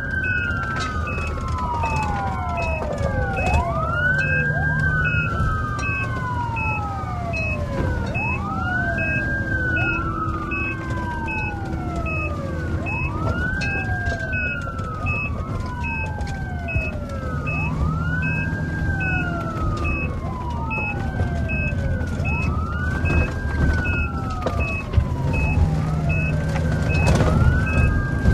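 Emergency vehicle siren wailing. Each cycle climbs quickly and slides slowly back down, repeating about every four and a half seconds, with overlapping echoes of the wail. A regular high beeping and a low rumble run underneath.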